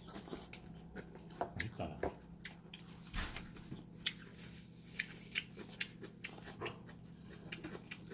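Someone eating a meal: irregular short clicks and taps of cutlery against dishes, mixed with chewing.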